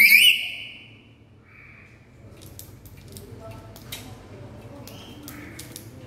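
Black-capped lory giving one loud, shrill screech right at the start, then quieter raspy squawks, with a few short clicks between them.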